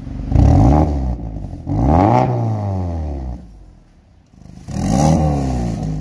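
Mazda CX-5's engine revved three times through an aftermarket valved catback exhaust, each rev rising and falling in pitch, the second held longest, with idle between.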